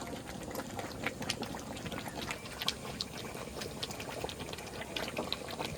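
Pot of tuna head-and-bone curry boiling: a steady bubbling hiss scattered with many small pops and ticks.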